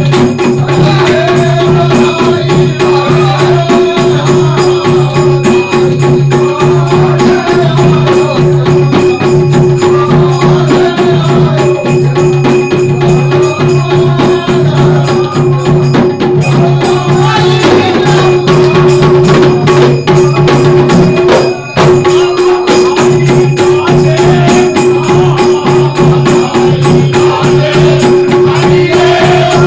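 Fagua (Holi folk song) played live: men's voices singing over a steady, driving beat on a dholak-type barrel drum, with jingling metal percussion and a held drone tone. The music breaks off for a moment about twenty-one seconds in, then resumes.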